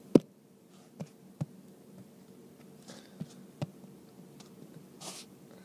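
About five sharp, irregularly spaced taps of a stylus on a tablet screen, the first and loudest just after the start, over a faint steady low hum.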